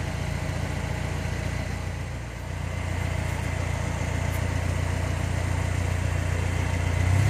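Truck engine fed by a Weber 32/36 DGEV carburetor idling steadily, its hum dipping briefly about two seconds in and then settling slightly louder. At idle the mixture is running rich, with carbon monoxide and hydrocarbons climbing on the exhaust gas analyzer.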